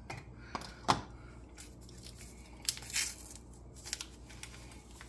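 Soft handling noises: a few light knocks and clicks with brief crinkling, as a funnel is set into the neck of a glass gallon jug ready for adding yeast.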